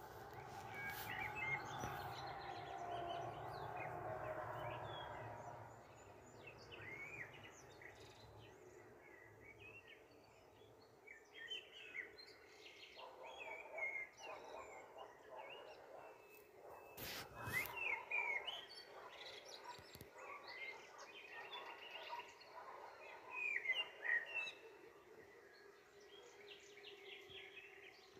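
Small birds chirping and twittering. A couple of sharp knocks come near the start and a louder one past the middle.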